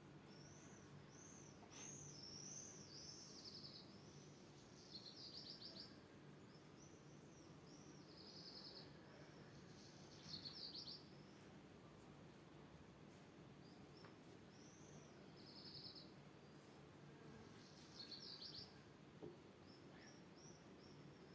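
Faint birdsong: a small bird sings short phrases of high, arched chirps ending in quick trills, repeated every few seconds, over a steady low background hum.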